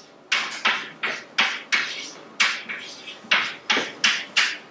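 A quick, uneven run of sharp taps, about three a second, each with a short hissing tail.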